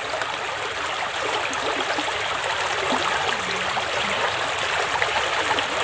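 Steady rush and trickle of shallow running water.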